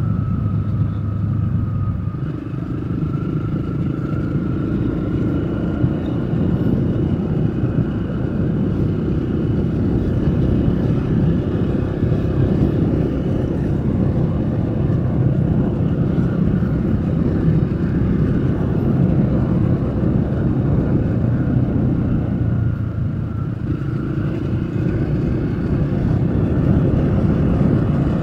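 Motor vehicle driving along a road, recorded on board: a steady engine hum over road and wind noise, with the engine note shifting about two seconds in and again near the end.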